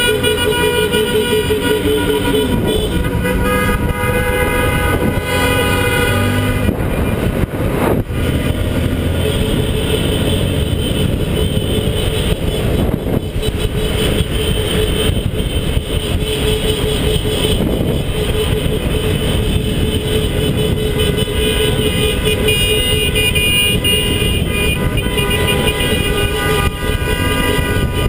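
Many car horns honking at once in celebration, overlapping nearly without pause at several pitches, over traffic and wind rumble on the microphone of a moving vehicle.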